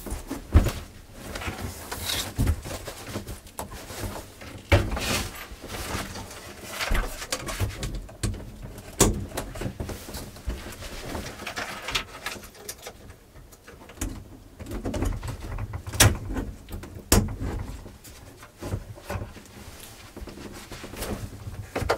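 Handling noise as seat cushions are shifted and a hinged wooden pop-up desk is lifted into place: irregular knocks, thumps and rustling throughout.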